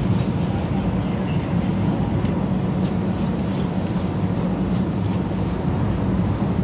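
Large motor yacht's diesel machinery running with a steady low rumble.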